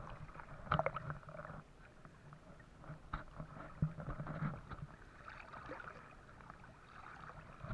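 Water splashing and swishing around the legs of a person wading through a shallow, flowing river. There are a few sharper splashes about a second in and again near the middle, with a quieter wash after.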